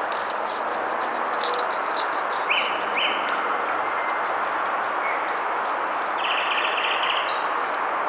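Wild birds calling in a wood: scattered short chirps and whistles, with a fast trill about six seconds in, over a steady hiss.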